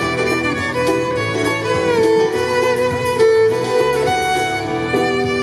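Violin playing a melody of long held and gliding notes, amplified through a loudspeaker on a stand, over an accompaniment with steady low bass notes beneath it.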